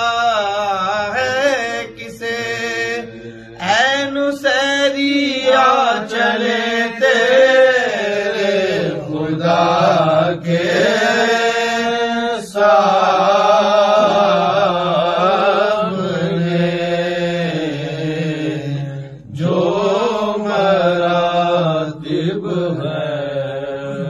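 A man's voice chanting an Urdu nauha (Muharram elegy) in long, wavering held notes, with short breaks between phrases.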